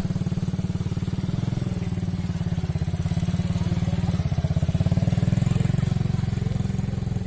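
Small ATV (quad bike) engine running at low speed as the quad drives past, with a steady, rapid pulse that grows louder as it comes closest about four to five seconds in.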